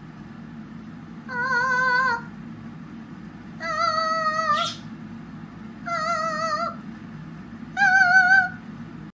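Parrot singing operatic-style notes: a short note at the start, then four long held notes with a strong wavering vibrato, each under a second long with pauses between, over a low steady hum.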